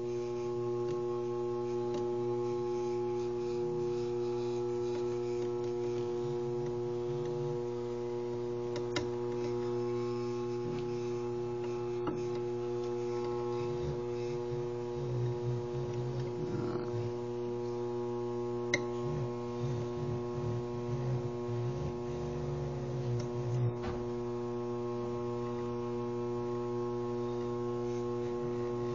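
Small variable-speed lathe motor running steadily as it turns a pool cue for wrapping Irish linen, a constant electric hum with a few faint clicks.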